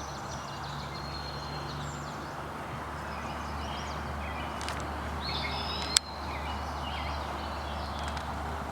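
Steady rush of a flooded creek running high, with birds chirping over it and one sharp click about six seconds in.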